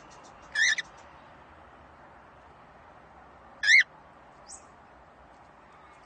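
Cockatiel giving two short, loud whistled calls about three seconds apart, followed by a faint chirp.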